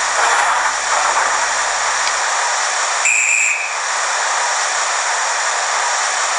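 Steam-locomotive sound file from a Hornby HM7000 sound decoder, played through a small baby boomer speaker: a steady hiss of steam, with one short whistle toot about three seconds in.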